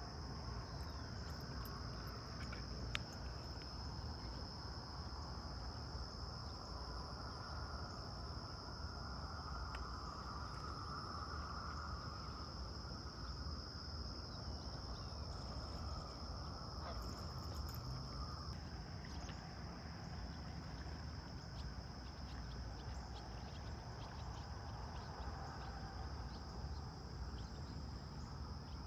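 Steady high-pitched chorus of insects at the lakeshore, a constant even trill, over a low rumble of wind. A lower buzzing band joins it from about eight to eighteen seconds in, and there is a single click about three seconds in.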